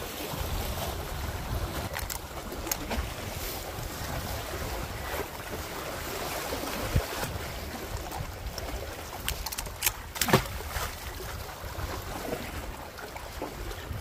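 Wind on the phone's microphone over small waves washing against the breakwater rocks, with a few short clicks and knocks.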